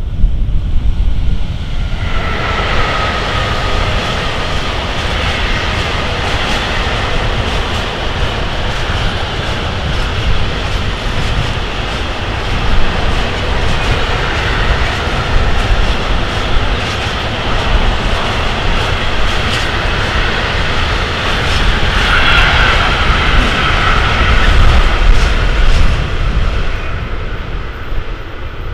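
Intermodal freight train of semi-trailers on pocket wagons rolling past at speed: a steady rumble with rapid clatter of wheels on the rails. A high steady tone from the running gear stands out about two seconds in and again near the end.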